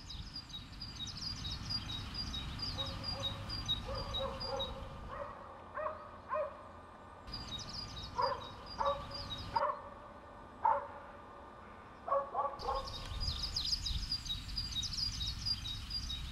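A dog barking in short runs of yaps, heard several times over birds chirping in a quick, even series, with a low background rumble.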